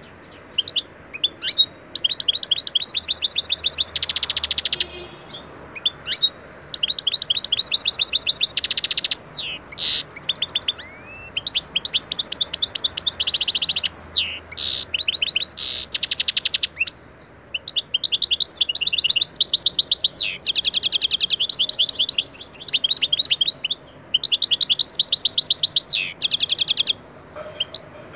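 European goldfinch singing: phrases of fast repeated high twittering notes and trills, broken by short pauses every few seconds.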